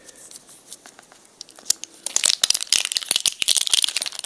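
Plastic packaging crinkling and tearing as it is unwrapped by hand: a few light clicks at first, then a dense crackling from about two seconds in.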